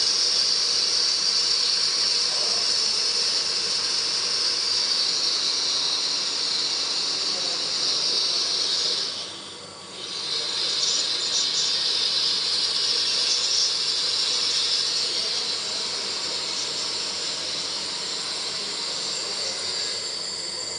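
CNC wire EDM machine cutting: a steady high-pitched hiss from the sparking wire. It drops away for about a second roughly halfway through, then resumes.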